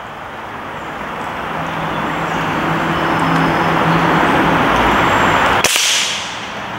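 A steady rushing noise with a faint low hum swells louder. About five and a half seconds in, a .22 break-barrel air rifle (Umarex Syrix) fires once with a sharp crack, and the rushing falls away.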